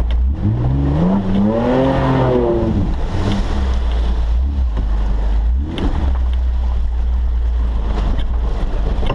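Suzuki Vitara's engine heard from inside the cab, revving up and back down about a second in and again briefly later, over a steady deep rumble and the wash of mud thrown up against the body.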